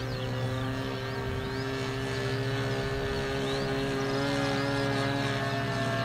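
Irvine 53 two-stroke glow engine of a radio-controlled Pilatus PC-9 model airplane, running at a steady, even pitch as the plane flies overhead.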